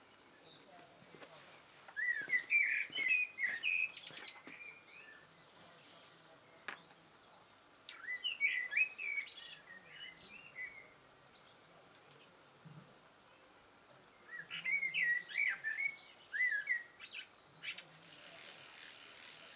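A songbird singing three phrases of quick, rising chirped notes, several seconds apart. A steady high hiss begins near the end.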